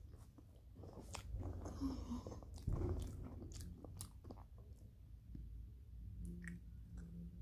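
Close-up chewing of a sugar-coated marshmallow Peep, with scattered short wet mouth clicks and smacks.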